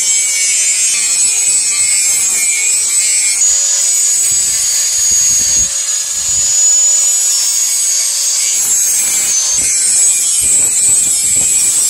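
Electric angle grinder with an abrasive disc running against a steel knife blade. The grinding makes a loud, steady hiss over the motor's steady whine.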